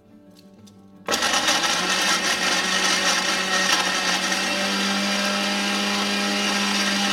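Electric mixer grinder with a steel jar, switched on about a second in and running steadily as it grinds chopped tomato, green chilli, garlic and ginger into a paste.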